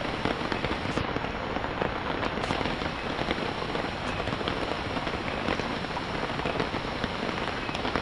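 Steady rain falling on the tarp overhead and the surrounding rainforest leaves, a dense even hiss with scattered drop ticks.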